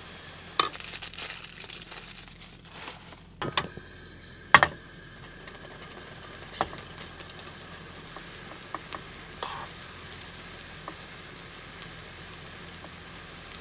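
Plastic wrapper of a cheese slice crinkling and tearing as it is opened, then a metal spoon striking a frying pan of pasta twice, the second strike the loudest. A few lighter clicks and scrapes of the spoon follow over a steady background hiss.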